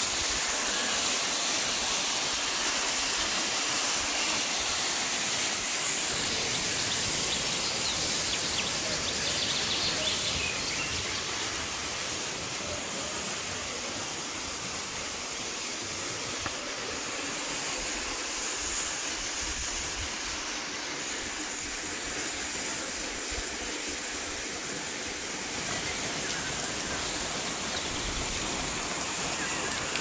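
Waterfall: water pouring and splashing over rock, a steady rushing hiss.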